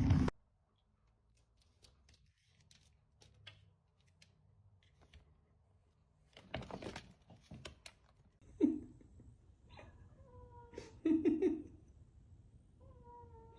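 Domestic cat meowing several times in the second half, short pitched calls with the loudest pair near the end. A short burst of noise comes before the first meow.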